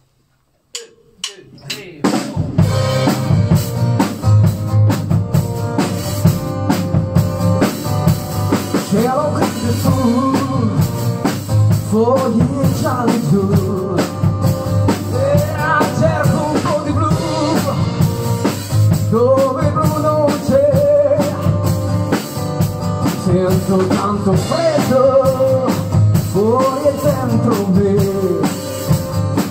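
Live rock band with drum kit and electric guitar playing an instrumental intro. A few drum hits come first, then the full band comes in about two seconds in, with a melodic lead line weaving above the beat.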